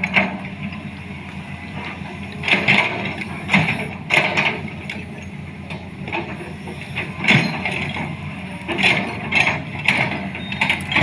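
Excavator's diesel engine running steadily under work, with repeated metallic clanks and squeals from the working machine every second or two.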